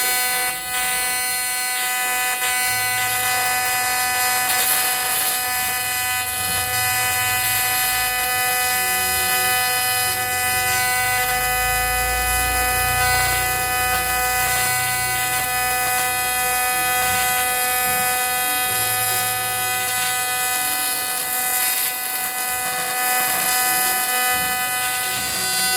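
A small electric motor runs at a steady speed, giving a constant high-pitched whine with a hiss over it.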